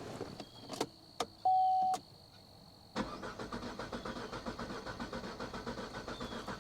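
A few clicks and a short electronic chime, then about three seconds in the 2014 Chevy Cruze's starter begins cranking the engine with a steady rhythmic churn, and the engine does not start. This is a crank-no-start being cranked in clear-flood mode; the engine doesn't sound very good, which the mechanic takes as a sign of an engine mechanical problem on top of the electrical fault.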